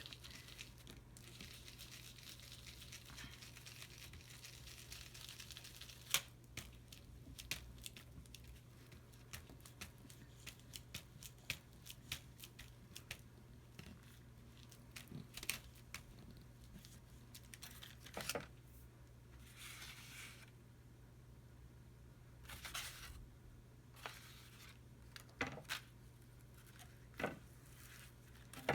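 Paper being worked by hand: a steady scratchy rubbing for about the first six seconds, then scattered light taps, clicks and short rustles of paper.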